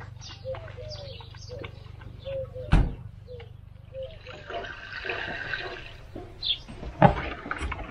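Water running or pouring for about two seconds, after a series of short low coos and a sharp knock a little under three seconds in, over a low steady hum.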